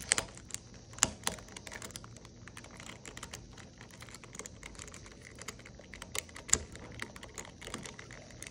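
Plastic pieces of a Tornado V3 magnetic speedcube clicking and clacking irregularly as they are worked back into the disassembled cube by hand. A few sharper snaps stand out, the loudest near the start and about a second in.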